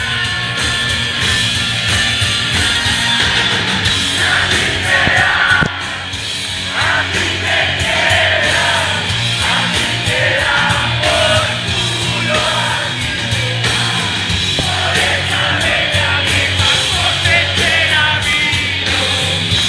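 Live rock band playing loud, with electric guitar and a voice singing over the band through the middle of the stretch.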